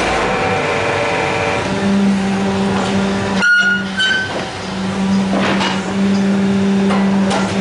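Construction machinery running with a loud, steady mechanical hum, briefly cutting out about three and a half seconds in.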